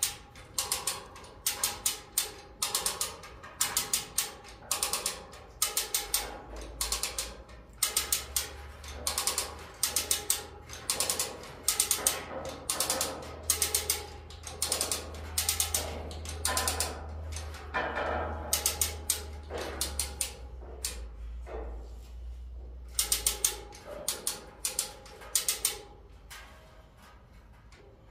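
Ratchet of a manually worked hoist clicking in rapid runs, stroke after stroke, as it lifts a heavy steel pallet-rack upright.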